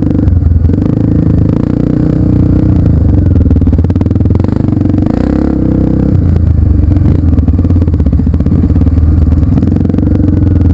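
Off-road trail motorcycle engine running loud and steady, with a brief change in engine pitch about five seconds in.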